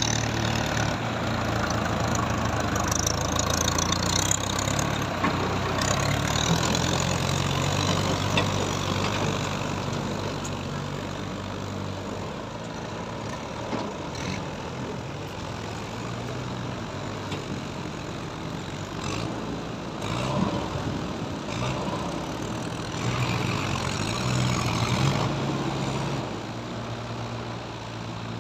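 Mahindra Yuvo tractors' diesel engines running steadily as they pull trailers through shallow water, louder for the first ten seconds or so, then easing off.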